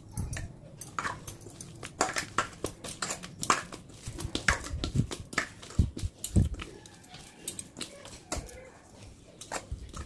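Soft, buttery bread dough being squeezed and kneaded by hand in a stainless-steel bowl, with irregular wet squelches and clicks and soft thumps, several a second. The dough sounds are sparser for a few seconds near the end.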